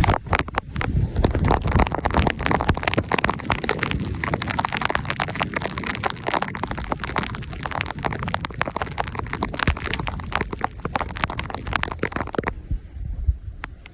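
Storm wind and rain battering the microphone: a dense, irregular crackling with heavy low rumbling buffets. It cuts away abruptly near the end to something much quieter.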